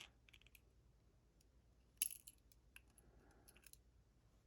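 Light metallic clicks and ticks of small lock pins and pinning tools being handled as a lock cylinder is taken apart, with one sharper click about two seconds in.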